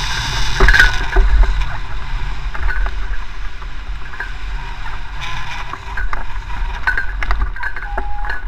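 Wind buffeting the microphone of a camera mounted on a hang glider in a fast, low glide, a loud, uneven rush, with scattered clicks and rattles from the glider's frame and rigging.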